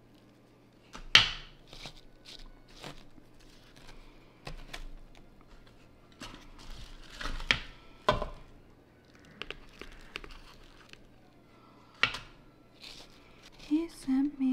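Hands repotting a begonia: rustling and crunching of potting mix and the handling of a pot, with a few sharp knocks, the loudest about a second in.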